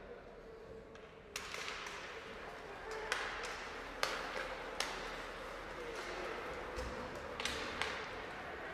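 Ice hockey play in a rink: a series of sharp clacks and taps of sticks and puck, about half a dozen spread over a few seconds, over steady arena background noise.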